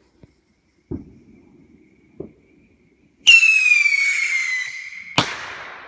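Whistling firework rocket: a loud whistle that falls in pitch over about two seconds, then a sharp bang as it bursts, trailing away.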